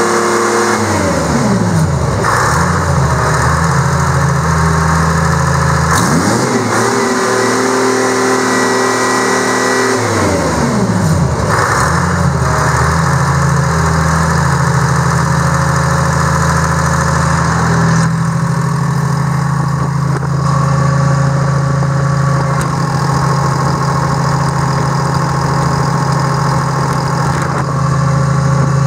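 Detroit Diesel 6V53 two-stroke V6 diesel engine running: it falls from a raised speed to idle about a second in, is revved up again around six seconds in and held for a few seconds, drops back to idle, and then idles steadily.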